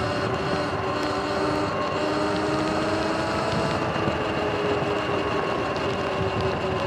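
Sur-Ron electric dirt bike under way: the electric drive's whine in several tones that drift slowly up and down with speed, over steady wind and road noise.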